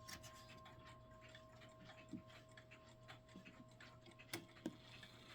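Mechanical clock ticking faintly and steadily, with two louder clicks about four and a half seconds in.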